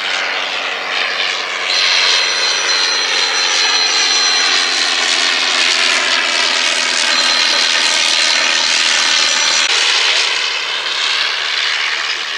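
Vintage propeller biplane's piston engine droning as it flies past. The sound swells about two seconds in, carries a sweeping, phasing tone while the aircraft is overhead, and eases off near the end.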